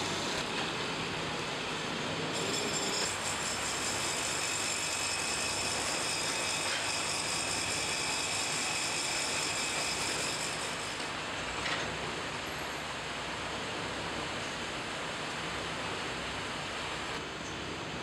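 Steady mechanical noise of a ceiling-fan stator coil-winding machine running, with a high whine over it from about two seconds in. The whine stops about eleven seconds in, leaving a slightly quieter steady workshop machine hum.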